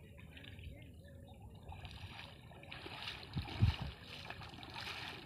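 Faint sloshing and splashing of shallow, muddy floodwater as someone wades through it, a little louder from about two and a half seconds in, with a brief low thump a second later.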